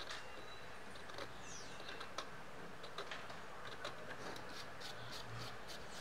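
The point of a screw scratching lines into the hard, dried shell of a calabash (totumo) in short, quick strokes, about two or three a second.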